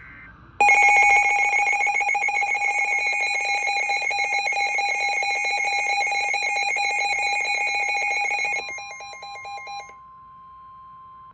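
Emergency Alert System two-tone attention signal: a loud, harsh steady alarm tone that sounds for about eight seconds before dying away, announcing a new alert. Near the end a quieter single steady tone begins.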